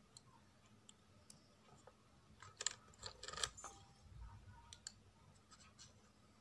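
Faint clicks and light scraping of a small knife against a small steel plate as a miniature pudding is cut and a slice is lifted out. The sharpest clicks come in a short cluster a little under halfway through; otherwise near silence.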